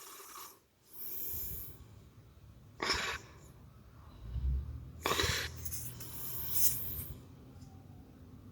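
A few short breaths through the nose close to the microphone, with soft rustling of trading cards being handled between them.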